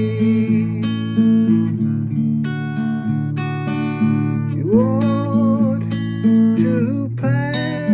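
Acoustic guitar strummed, playing sustained chords that change every second or so.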